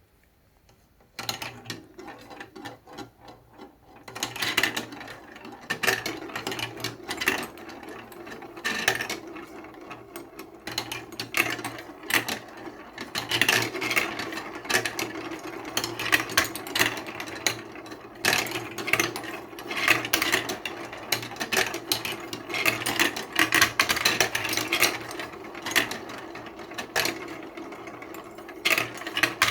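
Many balls rolling and clattering down a marble run built from building blocks: a dense, steady rattle of clicks and knocks over a rolling rumble, starting about a second in.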